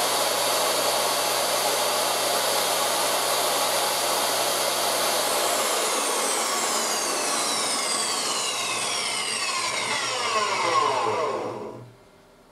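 DeWalt DW745 10-inch jobsite table saw's universal motor running free with no load, its blade lowered below the table. It is switched off about five or six seconds in and winds down with a falling whine until it stops near the end.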